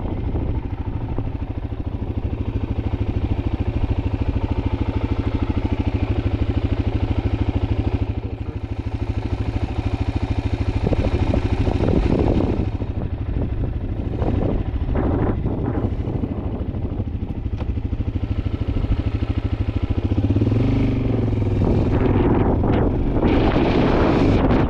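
An engine running steadily with a fast, even pulse. Louder rushes of noise come in about halfway through and again in the last few seconds.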